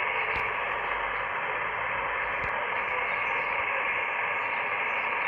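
Icom IC-R30 receiver's speaker hissing with shortwave static on an idle upper-sideband aeronautical HF channel between transmissions. The noise is steady and narrow-band, with two brief clicks.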